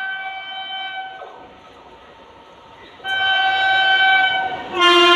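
Electric locomotive's multi-tone horn sounding as the train approaches at speed: a long blast that stops about a second in, then after a short pause the horn sounds again, louder near the end with its pitch dropping as the locomotive draws level. The rumble of the train on the rails grows under it.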